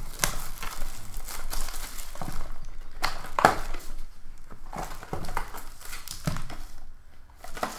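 Plastic wrapping crinkling and tearing and cardboard packaging rustling as a sealed trading-card box is unwrapped and opened, with scattered short sharp clicks; the sharpest is about three and a half seconds in.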